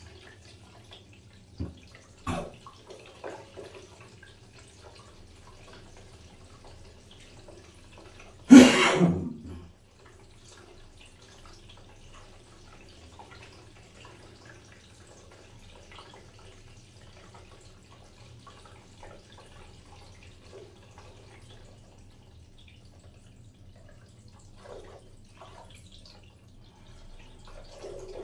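Water dripping continuously over a low steady hum, with a few faint ticks scattered through. A single loud burst about a second long comes a little under halfway through.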